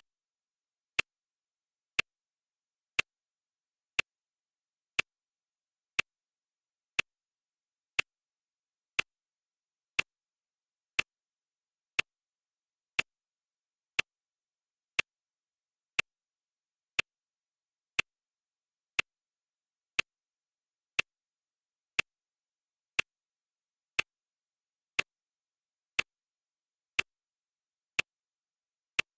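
Clock ticking sound effect: one sharp tick every second, evenly spaced, with silence between the ticks.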